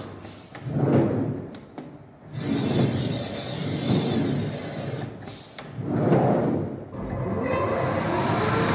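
Bottero 352 BCS automatic glass cutting table at work: its bridge and cutting head travel along their rails in repeated runs of a second or two, each swelling and fading. Near the end a steadier run begins with a rising motor whine.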